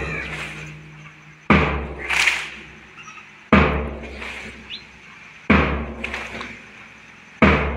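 Slow, steady drum beat with cymbal crashes: a heavy boom about every two seconds, four times, each with a bright crash that rings on.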